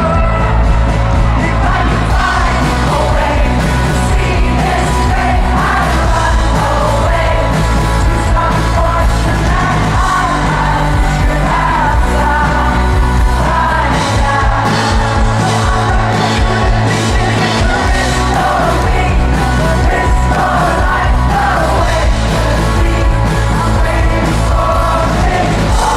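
Rock band playing live, with lead vocals over electric guitars, bass and drums. The low bass thins out for a few seconds midway, leaving choppy beats, then comes back in full.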